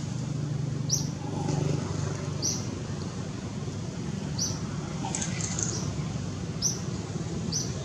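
A small bird giving short, high chirps, one every second or so, with a quick flurry of higher notes about five seconds in, over a steady low background hum.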